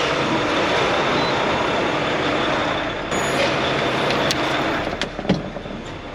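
Farm machinery engine running steadily with a heavy rush of noise, easing off near the end, with a few sharp clicks or knocks in the last couple of seconds.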